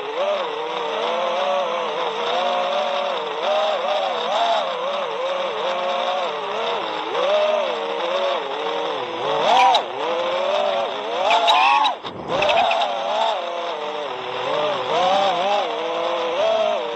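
The brushless motors and propellers of a 5-inch FPV racing quadcopter (Hypetrain Botgrinder motors, HQProp Ethix S4 props), heard from the drone's onboard camera: a steady buzzing whine whose pitch constantly rises and falls as the throttle changes. A couple of short sharp clicks come about ten and eleven and a half seconds in, with a brief dip in the sound just after.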